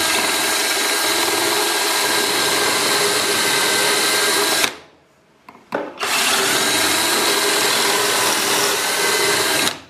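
Power drill running at a steady high speed, boring pocket holes with a Kreg pocket-hole bit through a Kreg Jig R3 guide into a wooden board. It drills twice: the first hole for about four and a half seconds, then a short stop with a couple of knocks as the bit is moved to the second guide hole, then the second hole until near the end.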